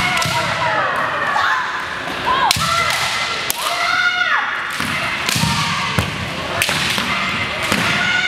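Women kendo fencers giving long, high, gliding kiai shouts as they attack. Bamboo shinai strike with sharp cracks and bare feet stamp on the wooden gym floor, several times.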